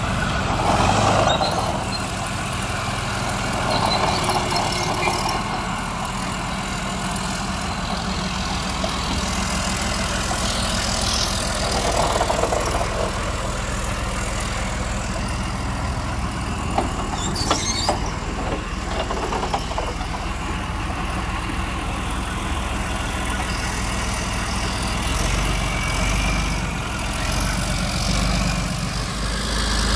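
Leopard 2 main battle tank's V12 diesel engine running steadily at low revs, with a few sharp metallic clanks about halfway through.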